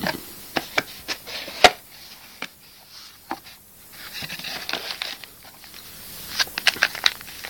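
A mobile phone and its box packaging being handled: plastic and cardboard rustling and crinkling, broken by sharp clicks and taps. The loudest is a single knock about a second and a half in, and there is a quick run of clicks near the end.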